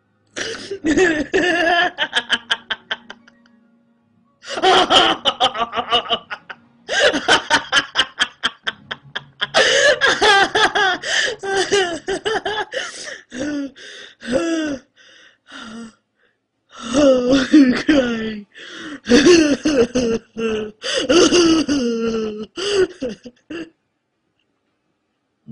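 A woman laughing hard in several long bouts of rapid, pulsing laughter, with gasping breaths between them and short silent pauses.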